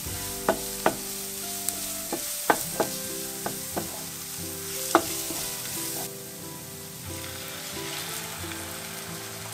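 Food sizzling as it fries in a pan, with a utensil stirring it and clicking sharply against the pan several times in the first five seconds.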